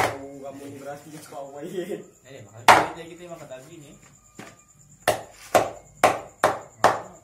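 Large knife chopping raw chicken on a wooden cutting board: a few single heavy chops, then five in quick succession, about two a second, near the end.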